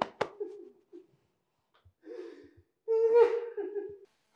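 A person crying in distress: sharp catching sobs at the start, then two drawn-out wailing cries, the second the loudest.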